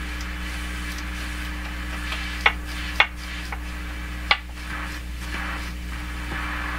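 Fisher System 8700 amplifier putting a steady mains hum with faint hiss through its speakers, which the owner traces to the phono input left open circuit. Three sharp clicks sound over it as the front-panel slide controls are worked, two close together about halfway through and one a little later.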